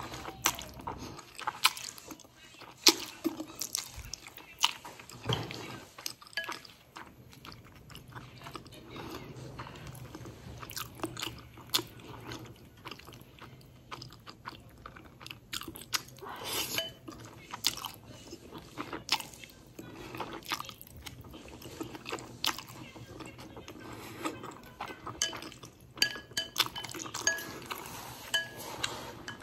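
Close-miked slurping and chewing of wide hand-pulled noodles: wet mouth sounds and many short clicks.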